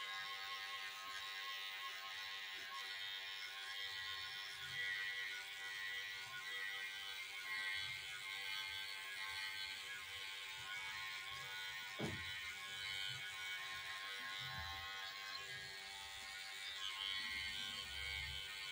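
Electric hair clipper buzzing steadily as it cuts short hair at the nape and around the ear, blending a fade.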